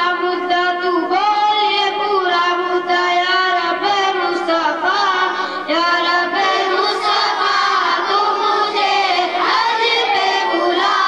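A boy singing a naat solo into a microphone, in long held notes that bend and turn between phrases.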